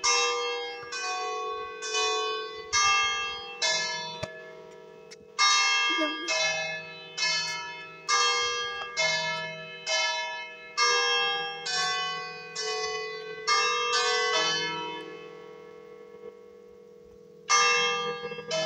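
Three church bells, cast in 1909 and tuned in E-flat, struck one after another as a hammered carillon tune, about two strikes a second, each note ringing on as the next comes. The run stops for about two seconds near the end, then starts again with a loud strike.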